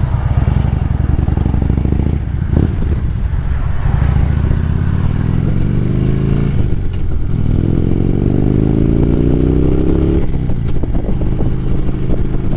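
Harley-Davidson V-twin motorcycle engine accelerating hard through the gears. The pitch climbs, drops at a shift about seven seconds in, climbs again, then settles into a steady cruise near the end.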